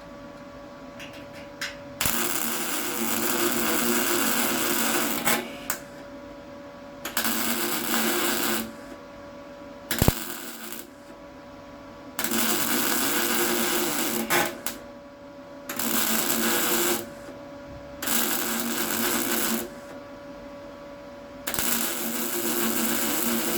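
MIG welder laying short runs of weld on steel panel work, a crackling, buzzing sizzle in about six bursts of one to three seconds with pauses between them. A single sharp knock comes about halfway through.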